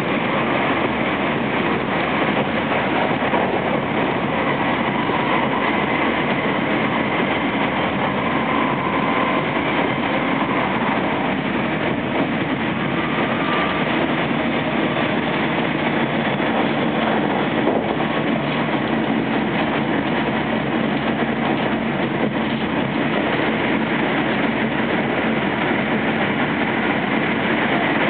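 Steady running noise inside a JR West 225 series electric train with Toshiba traction equipment, travelling at speed: wheels on rail and the car's own rumble, even and unbroken.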